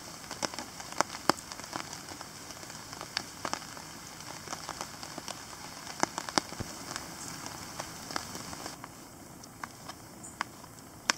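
Rain pattering on a tarp: a steady hiss with irregular sharp ticks of individual drops. About nine seconds in it gives way to a quieter background with a few light clicks of a pocket knife slicing mushrooms on a cutting board.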